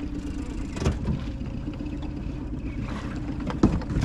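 Outboard motor idling steadily as an aluminium boat comes alongside a floating pontoon, with two sharp knocks from the hull bumping the pontoon: a light one about a second in and a louder one near the end.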